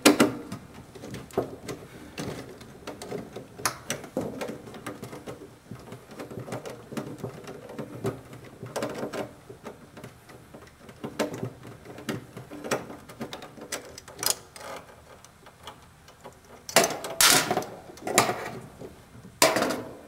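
Small clicks and scrapes of hand work on a gas furnace's hot surface igniter mounting: its screws being undone at the metal burner bracket. A few louder knocks come near the end as the igniter assembly comes out.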